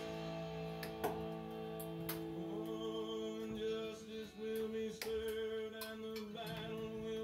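Country song playing on a radio: a male singer over guitar and band.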